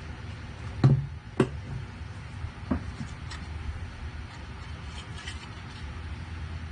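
Sharp knocks of wooden parts handled on a wooden workbench while the thin back panel is fitted onto the glued lyre frame. Two loud knocks come about a second in and a lighter one follows, over a steady low hum.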